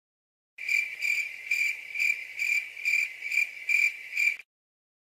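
Cricket chirping sound effect, the stock 'crickets' gag for an awkward silence: a high, even chirp repeated about twice a second, some eight chirps in all, starting about half a second in and stopping shortly before the end.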